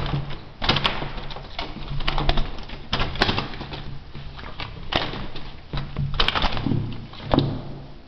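A trapped common blackbird flapping its wings against window glass in repeated flurries, with sharp taps and knocks, as a gloved hand scuffles along the sill to catch it.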